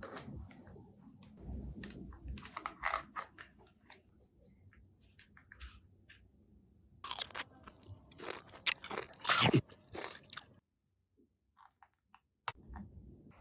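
Crunchy eating sounds: bites and chewing of the cake, with crackly bites coming in bursts between quiet gaps, a dense run of them past the middle.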